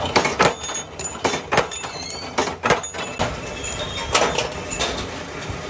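Metalworking machinery clanking: a series of sharp metallic knocks with a short ring, about six in the first three seconds. After that a steadier machine runs, with two more knocks.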